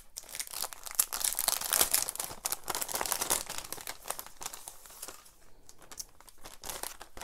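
Crinkly packaging of a card-making kit rustling and crackling as it is handled. There is a dense run of fine crackles that eases off briefly about five and a half seconds in.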